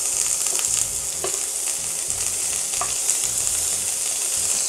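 Herb butter sizzling steadily as it melts in a hot frying pan, pushed around with a spatula, with a few faint clicks of the spatula against the pan.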